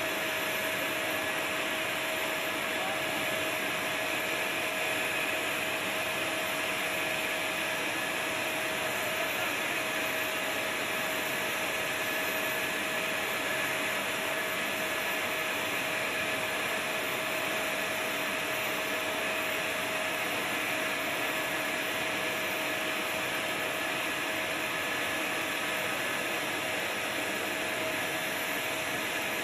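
Steady whine and rushing hiss of a small gas-turbine power unit serving the parked aircraft, running without change, with one constant high tone through the hiss.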